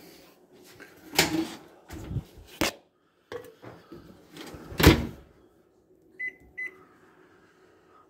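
Microwave oven door and dish handled: several knocks and clacks, the loudest about five seconds in, then two short keypad beeps a little after six seconds and a faint steady hum as the oven runs.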